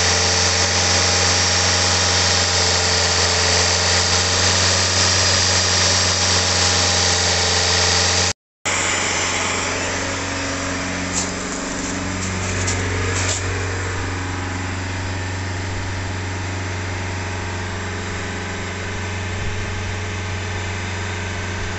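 Saab 9-3 diesel engine running steadily at a held raised idle of about 2000 rpm while carbon-cleaning fluid is sprayed into the intake ahead of the turbo. A strong hiss over the engine for the first eight seconds drops away after a brief break, and the engine then runs on steadily.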